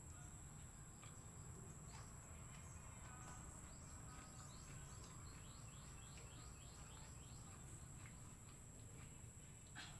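Near silence: faint room tone with a steady high-pitched whine and a low hum. A faint run of rapid bird chirps comes in the middle.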